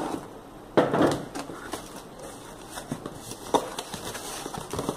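A taped cardboard shipping box is cut and pulled open by hand. A loud tearing rasp comes about a second in as the taped flaps are torn apart, followed by scattered cardboard rustling and clicks as the flaps are handled.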